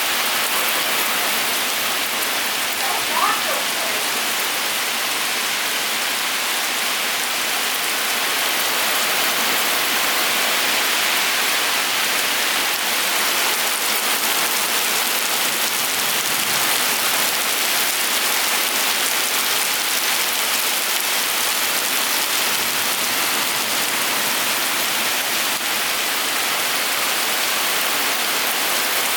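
Heavy rain pouring down steadily: an even hiss without a break.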